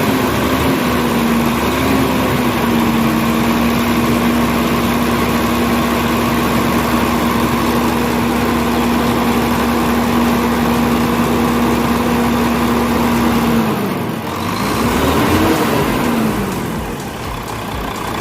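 Volvo truck diesel engine running steadily at raised revs, now starting after a hard-starting fault in its fuel system was bled. About 14 seconds in the revs drop, rise briefly and fall back to a lower idle.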